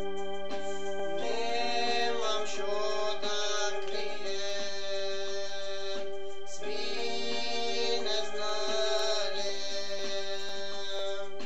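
A man singing two long, wavering phrases over steady held chords from an electronic keyboard with an organ sound.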